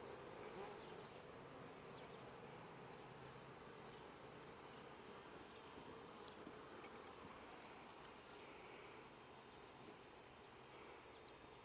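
Faint, steady hum of a honeybee colony buzzing in and around the hive.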